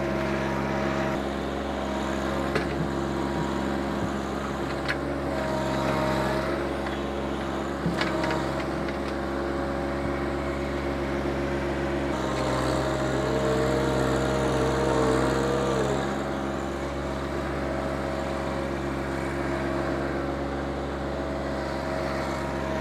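John Deere 1025R compact tractor's three-cylinder diesel running steadily as its front loader scrapes and dumps dirt, with a few sharp knocks along the way. For a few seconds in the middle a wavering whine rises over the engine.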